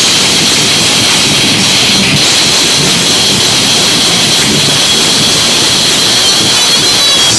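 Heavy metal band playing live at full volume, drums and distorted guitars recorded so loud that they blur into a dense, steady, overdriven wall of sound.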